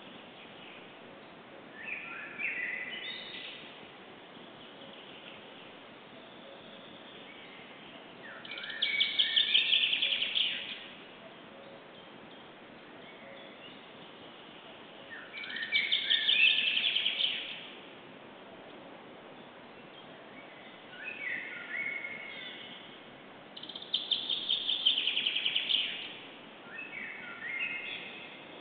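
Songbirds singing, about six short phrases a few seconds apart over a steady hiss. Each phrase is a run of stepping, falling notes followed by a fast trill, with louder and fainter phrases alternating.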